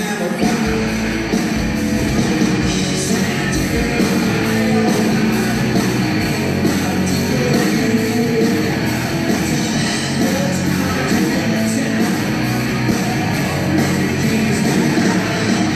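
Live hard rock band playing loud: electric guitars and drums on a steady beat, with vocals.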